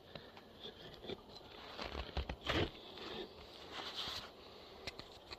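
Footsteps crunching in snow, an irregular run of soft crunches and clicks with the loudest step about halfway through.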